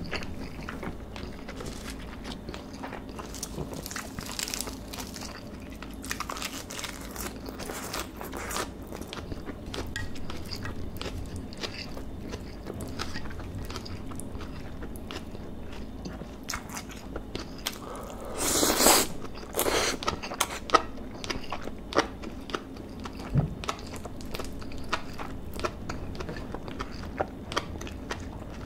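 Close-miked chewing of marinated beef bulgogi with enoki mushrooms and rice: steady wet mouth sounds and small clicks. A louder rushing sound comes about two-thirds of the way through, followed by a few sharper smacks.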